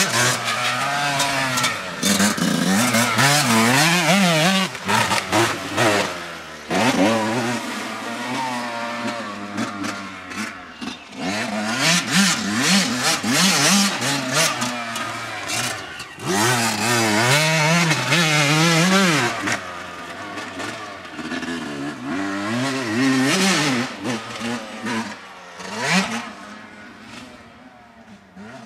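Motocross bike engine revving up and dropping back again and again, its pitch climbing as it accelerates and falling as the throttle comes off. It grows fainter near the end.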